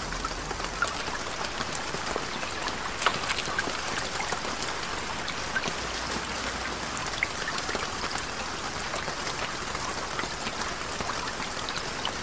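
Steady water noise, a soft even hiss, with scattered faint ticks and clicks through it.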